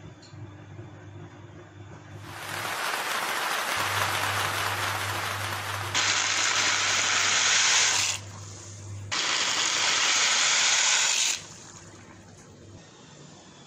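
Water in a cooking pot making a loud, even rushing hiss that starts about two seconds in, gets louder and brighter about six seconds in, drops out briefly near the middle and cuts off abruptly near the end. A low steady hum runs under the first part.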